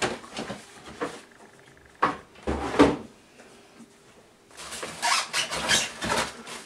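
Packaging and parts being handled during an unboxing: a few knocks and a dull thump in the first half as pieces come out of a cardboard box and are set down, then packaging rustling for about two seconds near the end.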